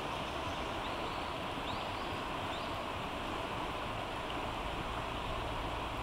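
Steady rushing of a flowing stream, with a few faint short bird chirps about one, two and two and a half seconds in.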